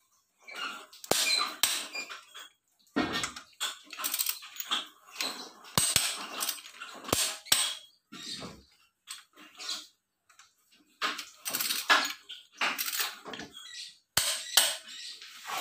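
Ratchet wrench clicking and a steel socket clinking in irregular bursts as the cylinder head bolts of a Mitsubishi L300 diesel engine are run down by hand.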